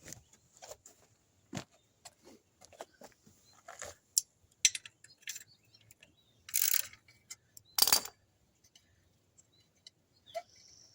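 Scattered metallic clinks and rattles of a wrench and bolts while a motorcycle's skid plate is being unbolted. There is a short scraping rattle about two-thirds of the way through and a sharp clank just after it.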